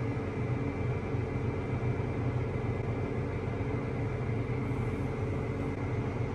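John Deere 8R 340 tractor's six-cylinder diesel engine running steadily, heard from inside the cab as a low, even drone.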